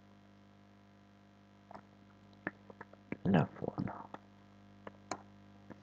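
A few keyboard keystroke clicks while code is being typed, with a brief mumbled voice about three seconds in, over a steady electrical hum.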